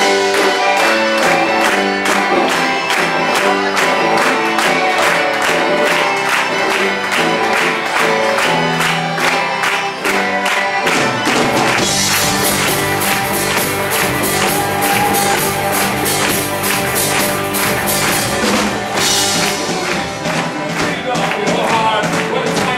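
Rock band playing live: electric guitars, bass, accordion and a drum kit with a steady beat. From about halfway, cymbals come in and ring over the band for several seconds.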